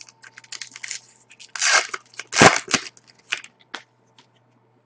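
A trading card pack's wrapper being torn open and crinkled by hand: a run of crackling rustles with two louder rips about two and two and a half seconds in, then a few fainter crinkles.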